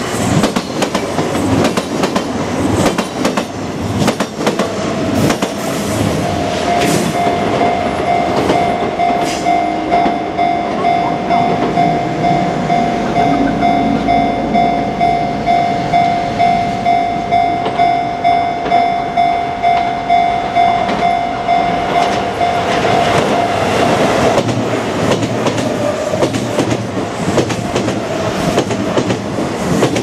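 Japanese level-crossing alarm ringing in an even, repeating kan-kan tone while the crossing lights flash, over the rumble and wheel clatter of Kintetsu commuter trains passing. One train is going by at the start and another comes through near the end.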